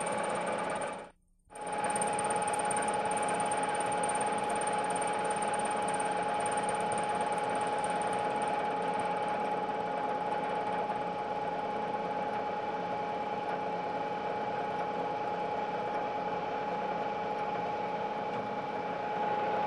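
Milling machine running with its power feed engaged, taking a light finishing pass of about two thousandths of an inch across a metal part: a steady whine over even machine noise. There is a brief drop-out about a second in.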